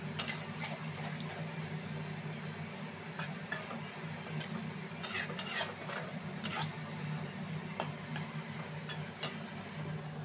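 Metal spatula scraping and clicking against the side of a cooking pan while stirring a simmering prawn curry, the strokes bunched about five to six and a half seconds in, over a steady low hum.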